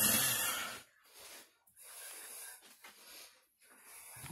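A loud breath out close to the microphone, lasting under a second, then faint soft breathing.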